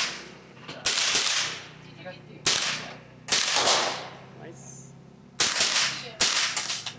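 AR-15-style rifle firing single shots at an uneven pace, about six in all, each a sharp crack with a short echoing tail; the last few come closer together near the end.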